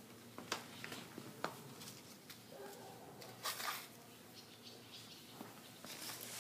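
Faint rustling of leaves and a few soft clicks and scrapes from a pet rabbit tugging at and nibbling potted plants, with a louder rustle about three and a half seconds in.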